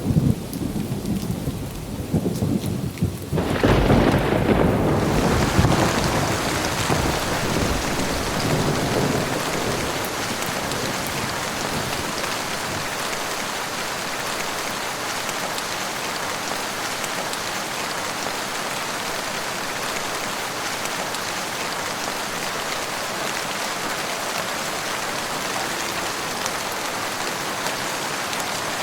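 Thunderstorm: rolling thunder fades, then a sharp thunderclap about three and a half seconds in rumbles away over several seconds, leaving steady rain.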